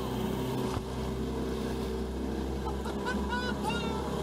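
A small boat's motor running steadily at low speed, a continuous low hum. A few short, high-pitched cries come in about three seconds in.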